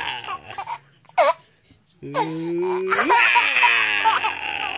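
Toddler laughing hard while being tickled: a few short bursts, a brief pause, then from about halfway a long unbroken run of rapid, high-pitched laughter.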